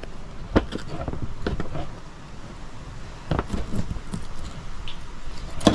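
Filleting knife cutting through a filleted jewfish frame on a plastic table: a few scattered sharp clicks and crunches, the loudest near the end.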